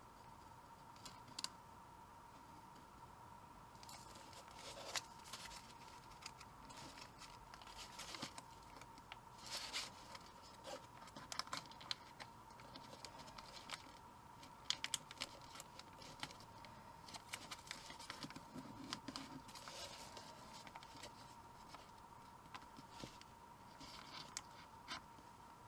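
Origami paper rustling and crinkling as it is folded and creased by hand, with light scrapes and taps of a plastic pen pressing the folds; the small rustles come in scattered bursts. A faint steady high tone runs underneath.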